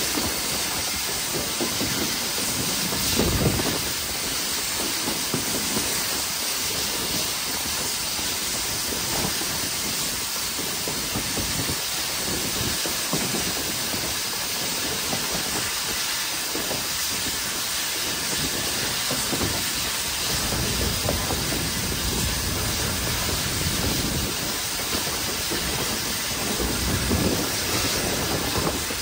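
LSWR T3 class 4-4-0 steam locomotive No. 563 working a train under steam: a steady hiss with the locomotive's running noise, heard from on board the engine, with a few heavier low surges along the way.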